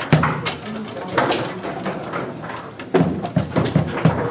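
Bonzini foosball table in play: irregular sharp knocks and clacks of the ball being struck by the figures and hitting the table, with the rods sliding and banging, over a murmur of voices.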